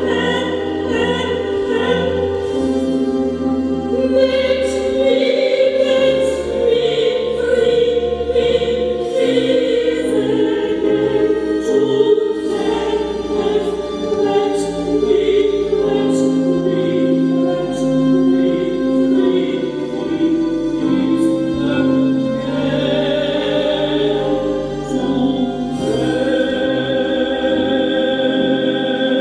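Music of a choir singing long held notes over a low bass.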